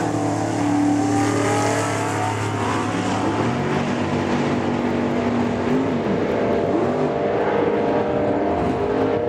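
Two drag-racing cars, one a big-block AMX, launching at full throttle and running down the strip. The engine note is held steady at first, then dips and climbs again twice, as at gear shifts.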